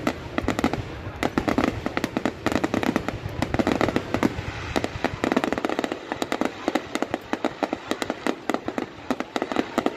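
Fireworks display going off: a dense, rapid crackle of many sharp bangs with no let-up.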